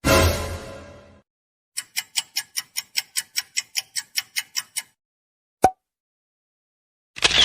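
A string of separate sound effects. First a sudden hit with a deep low end that fades over about a second, then a run of even, clock-like ticks, about five a second for roughly three seconds. A single sharp click follows, and a short burst of noise comes near the end.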